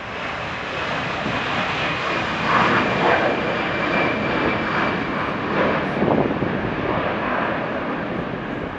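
Four CFM56 turbofan engines of an Airbus A340-300 running at takeoff thrust as it lifts off and climbs away: a steady, loud rush of jet noise, with a faint high whine from about two seconds in.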